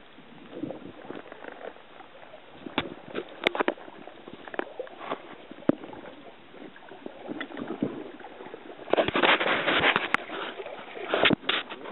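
Water sloshing around an inflatable float boat, with scattered sharp knocks and rubbing as the camera is handled against the boat, and a louder burst of noise about nine seconds in.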